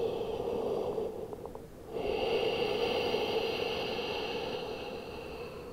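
A woman's slow, deep, audible breathing during a full yogic breath into the abdomen, chest and collarbones. One long hissy breath ends about a second in, and the next starts about two seconds in and slowly fades.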